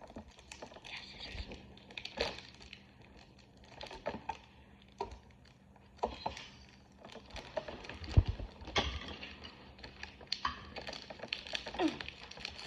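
Fingers picking at and crinkling the plastic wrapping of a Pokémon card pack, with scattered small clicks and crinkles and a louder knock about eight seconds in. The pack is being worked at by hand without tearing open.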